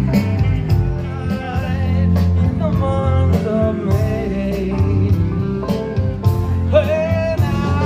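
Live band playing amplified through a stage PA, with electric guitar, drums and a singer.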